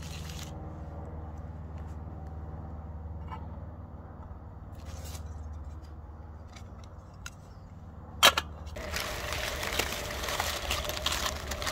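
Steel camping cookware being handled: a few light clinks as the mess-tin pot is set on its stand over the burner, then a sharp metal clank about eight seconds in, followed by a steady hiss. A low steady hum runs underneath.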